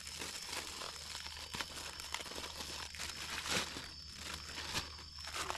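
A plastic bag of rice crinkling and rustling as it is handled, with scattered light clicks and taps, over a faint steady high whine.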